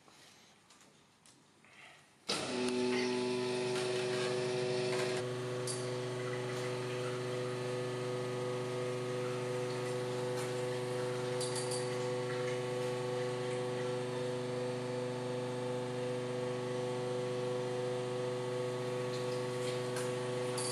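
Sunnen CV-616 cylinder honing machine switching on about two seconds in and running steadily as it hones an engine cylinder bore, a steady multi-tone mechanical hum that settles slightly a few seconds after starting.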